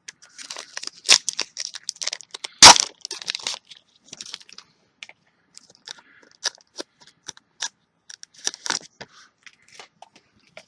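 Trading-card booster pack wrapper crinkling and being torn open by hand: a rapid, irregular run of sharp crackles, the loudest rip about two and a half seconds in and another flurry near the end.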